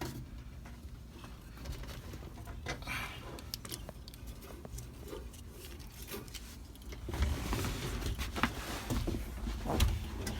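Scattered small clicks and scrapes of a screwdriver and parts being handled on a steering column as a screw holding the mechanical turn signal switch is taken out, with a busier, louder stretch of handling noise near the end.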